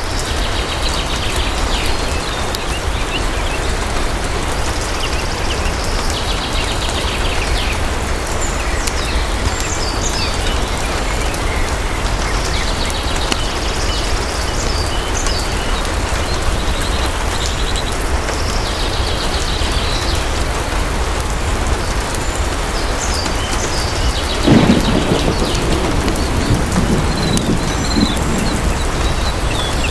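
Steady heavy rain falling. About five seconds before the end, a roll of thunder breaks in suddenly and rumbles on for a few seconds.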